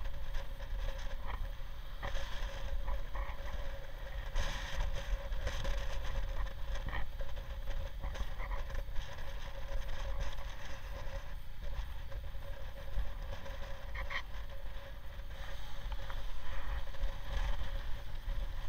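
Wind buffeting a motorcycle-mounted camera's microphone at road speed, over the steady hum of a Honda Deauville V-twin engine cruising.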